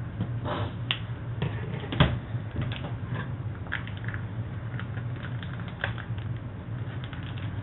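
Scattered light clicks and taps of handling at a kitchen counter, a couple of them sharper, over a steady low hum.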